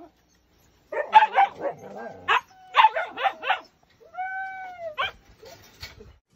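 Siberian huskies vocalising at each other through a wire crate: quick bursts of short yips and barks, then one drawn-out whine that rises and falls about four seconds in, followed by a few light clicks.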